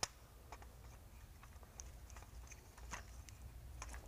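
Faint, scattered clicks and ticks of metal fittings being handled as a brass three-way blowdown valve is screwed by hand onto the air regulator assembly, with one sharper click at the start.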